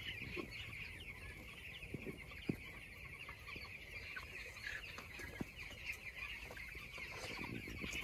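A large flock of two-week-old broiler chicks peeping continuously, many high, short chirps overlapping into a steady faint chatter. There are a few soft clicks here and there.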